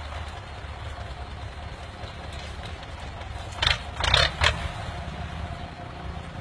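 Tractor's diesel engine running steadily under load with a low rumble as it hauls a heavily loaded trolley. A few brief, loud rushes of noise come between about three and a half and four and a half seconds in.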